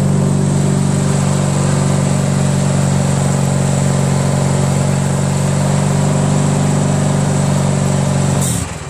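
Briggs & Stratton 14 hp opposed-twin engine running steadily on a Craftsman DYT4000 lawn tractor. Near the end there is a brief burst of noise, then the engine dies and winds down, stalling as the electric PTO clutch is switched on.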